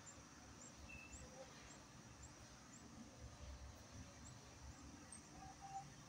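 Near silence with faint, short high-pitched budgerigar chirps repeating every fraction of a second, and one brief whistle about a second in, over a low hum.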